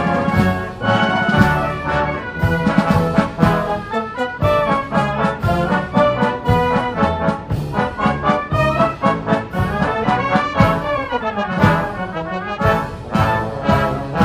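A brass band playing a national anthem, with trumpets and trombones sounding a quick, rhythmic run of notes.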